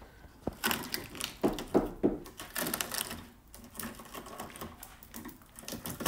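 Irregular clicks and scraping of rotten steel and flaking rust as a hand prods and pulls at a BMW E30 Touring's rusted-through front wheel arch and wing edge. The crumbling sound is a sign of corrosion that has eaten through the panel.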